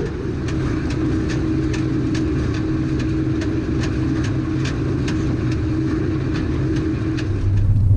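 Potato seed cutter and its sizer conveyors running steadily, a machine hum with a regular clicking of about two or three clicks a second.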